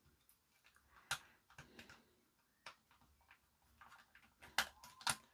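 Light plastic clicks and taps from handling a TV remote while its batteries are swapped and the battery cover is pushed shut. The clicks are scattered and sparse at first, then bunch together near the end as the stiff cover is forced closed.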